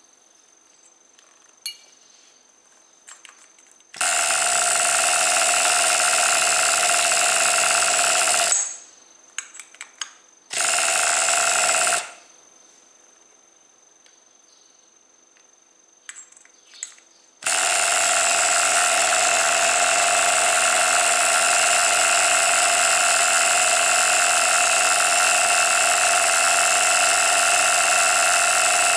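Small nitro glow engine of a Tamiya TGX 1/8 RC car running at a steady high whine. It starts about four seconds in and cuts out after a few seconds. It runs again briefly and stalls, then catches a third time and keeps running steadily.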